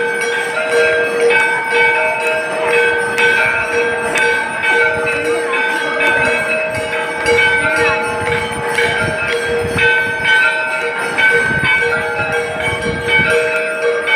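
Temple bells ringing continuously during an aarti, a steady metallic clangour of several overlapping ringing tones, with crowd voices underneath.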